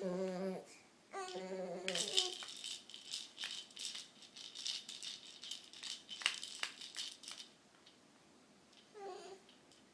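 A voice making two short, wavering hummed noises, then a fast rattling of many sharp clicks for about five seconds, and one brief vocal noise near the end.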